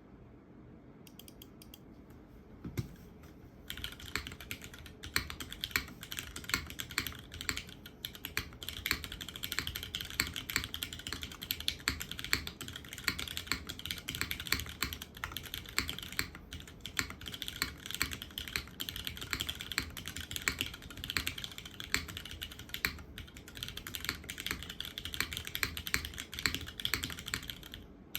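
Continuous typing on a custom 65% mechanical keyboard: a polycarbonate gasket-mount case with a full aluminium plate, broken-in Cherry MX Hyperglide Black linear switches (lubed, filmed, 55 g springs) and GMK keycaps. A few lone keystrokes at first, then steady fast typing from about four seconds in, with brief pauses near the middle and later on.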